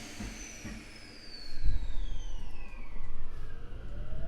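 Mitsubishi IGBT VVVF inverter of a Tokyo Metro 05 series train whining under power: several high tones glide steadily downward while a lower tone begins to rise near the end. The running rumble of the train swells about a second and a half in.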